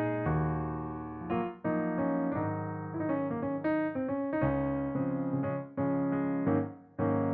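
Background music: a piano playing a slow melody over sustained chords, with fresh notes struck every half second or so.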